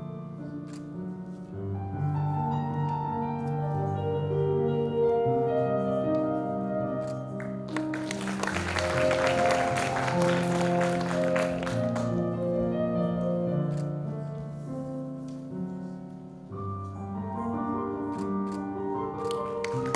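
Routine music of slow, sustained keyboard chords. From about 8 to 12 s a burst of audience applause rises over it.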